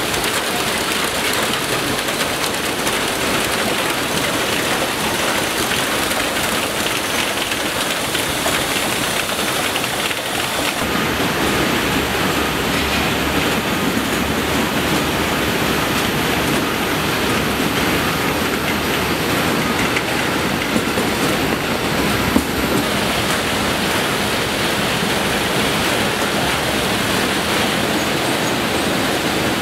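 Steady rattling din of a bell pepper packing line running: conveyors, roller sorters and a shaker bed, with a couple of sharp knocks about two-thirds of the way in.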